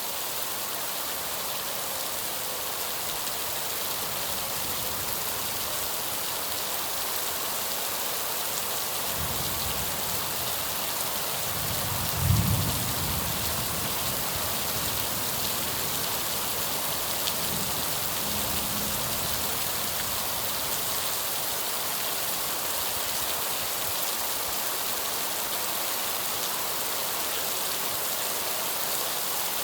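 Steady heavy rain hissing, with a low rumble that swells from about nine seconds in, peaks sharply around twelve seconds and fades out by about nineteen seconds.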